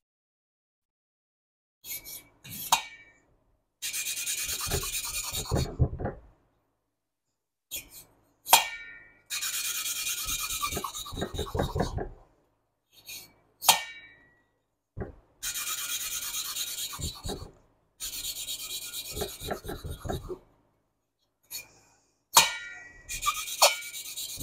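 Intake valve being hand-lapped into its seat in a Porsche 912E Type 4 aluminium cylinder head: a lapping stick spun back and forth between the palms grinds the valve face against the seat through lapping compound. The grinding comes in spells of about two seconds, with sharp taps between them as the valve is lifted and set back down on its seat. The grinding is still loud, so the seat is not yet fully lapped in.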